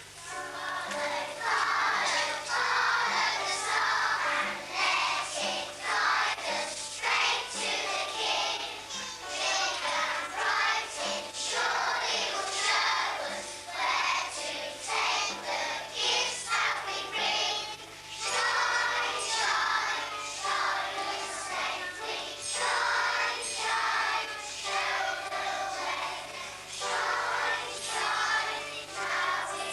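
A group of children singing together over instrumental accompaniment with a steady beat, with a low steady hum underneath.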